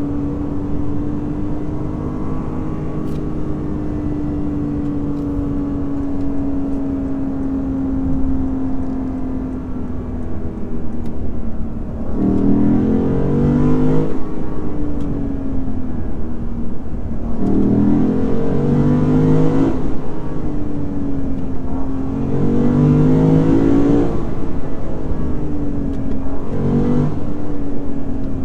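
Lexus IS500 F Sport Performance's naturally aspirated 5.0-litre V8 cruising at a steady note for about ten seconds, then accelerating hard in four short bursts, its pitch climbing and stepping at each gear change.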